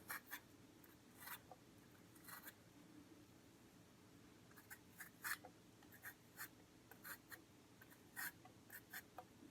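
Faint, short scraping strokes of a blade peeling the skin off a raw potato, coming at irregular intervals with a pause of a second or two in the middle.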